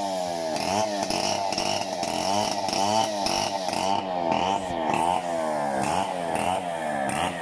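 Chainsaw running while cutting a felled coconut palm trunk, its pitch rising and falling over and over about twice a second.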